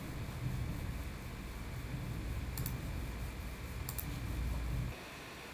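Low background rumble that drops away near the end, with two faint clicks of a computer mouse.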